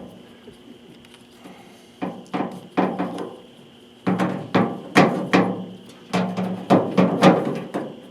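Sharp knocks and taps from hand work on the tailgate's metal latch parts: a few around two to three seconds in, then a faster run of them from about four seconds until near the end.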